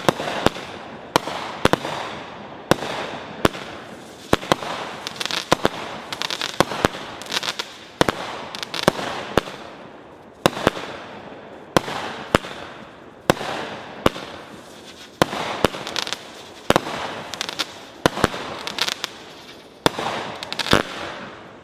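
Black Cat Bull Run firework cake firing a long string of shots. Sharp bangs come about one or two a second as shells launch and burst, with crackling between the reports.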